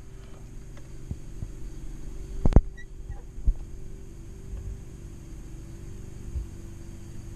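Handling noise as a plastic RC radio transmitter is picked up and turned over in the hands: a sharp knock about two and a half seconds in and a lighter one a second later, over a steady low hum.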